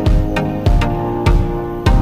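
Background music with a steady beat, about one beat every 0.6 seconds, under sustained instrumental tones.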